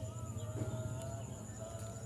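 Rice-field evening ambience: a steady high-pitched insect drone over a low, rapidly pulsing frog chorus, with a faint wavering tone above them.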